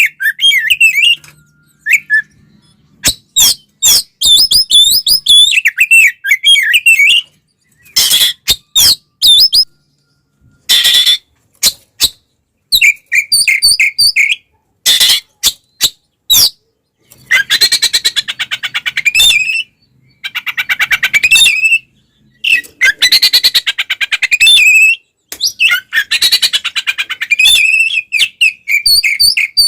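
Oriental magpie-robin (kacer) singing an aggressive fighting song: loud, rapid, varied whistled phrases mixed with harsh rasping notes, delivered in bursts with short pauses between them.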